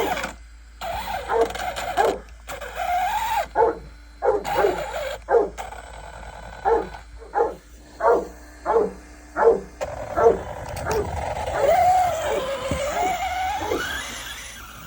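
A dog barking in a run of short, sharp yelps, then a long wavering whine near the end.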